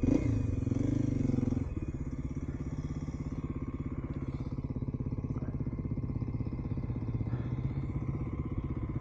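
Kawasaki KLX 250's single-cylinder four-stroke engine running, a little louder in the first second and a half, then settling to a steady, even beat.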